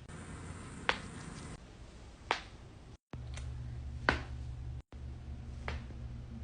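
Neck joints cracking during manual adjustments: a series of sharp single pops, four or five of them a second or so apart.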